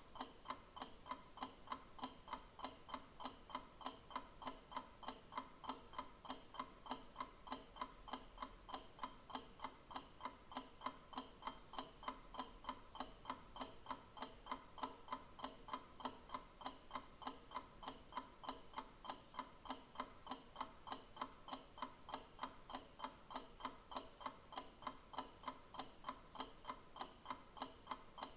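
Clock ticking steadily, with even, sharp ticks at a regular pace.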